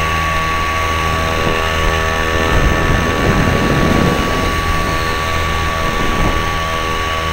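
Small engine of a foot-launched powered hang glider running steadily with its propeller, heard from a wingtip-mounted camera. Wind rushing over the microphone briefly swamps it in the middle.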